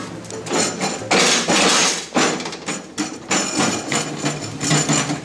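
Irregular metal clanks, knocks and short scrapes from the steel mower deck and ratchet-strap hardware being handled and shifted on concrete.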